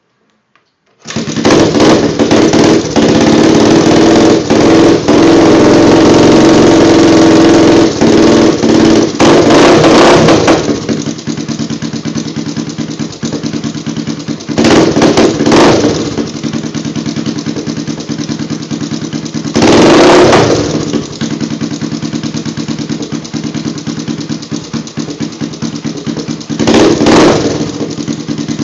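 Honda ATC 350X single-cylinder four-stroke engine with a DG exhaust catching about a second in and running fast for some ten seconds, then dropping to idle with three short throttle blips. The owner suspects bad top-end noise from the cam chain tensioner.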